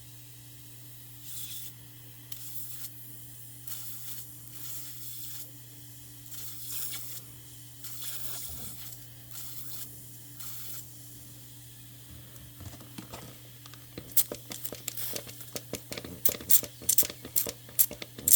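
A series of short hisses, each about half a second long, over a steady low hum. About three-quarters of the way through they give way to rapid scratching and clicking.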